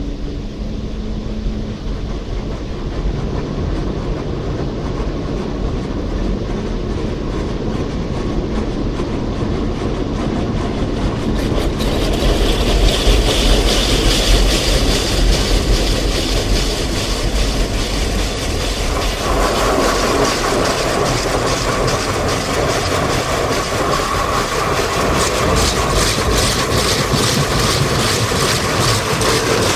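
Tammermatic T700 automatic car wash at work, heard from inside the car: water spraying over the body and windows with the machine's rumble, getting louder and brighter about twelve seconds in. Near the end a rotating wash brush sweeps along the side of the car with a rapid rhythmic patter.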